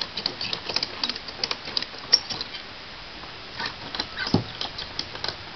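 Tie-down straps being tightened: a string of quick, irregular clicks and rasps from the strap buckles and webbing, in two spells, with one duller knock about four seconds in.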